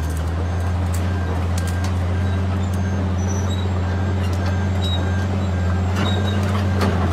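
Large Caterpillar excavator's diesel engine running steadily with a deep, even drone.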